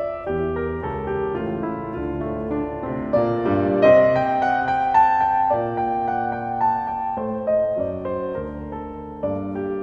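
Background piano music: slow, held notes and chords that change about once a second.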